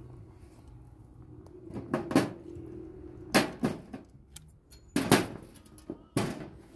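Several sharp knocks, mostly in close pairs, over a faint low steady hum.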